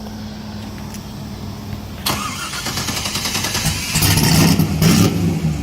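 LS V8 engine of a swapped Nissan 240SX (S14) drift car running. It gets suddenly louder about two seconds in and louder again about four seconds in.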